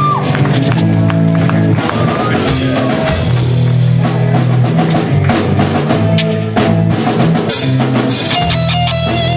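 Live rock band playing an instrumental passage: electric guitars and bass over a drum kit, loud and dense with frequent drum and cymbal hits.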